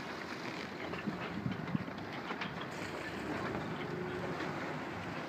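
Wind buffeting the microphone over the steady rush and splash of water along a sailing yacht's hull as it moves through choppy sea, with a few brief louder knocks between one and two seconds in.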